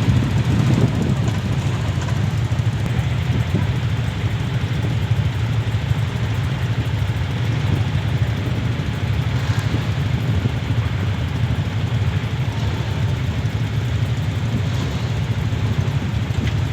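Ferry's engines running with a steady low rumble.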